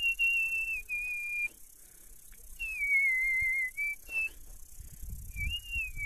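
A person whistling a tune: long held notes with small slides in pitch, in a few phrases broken by short pauses.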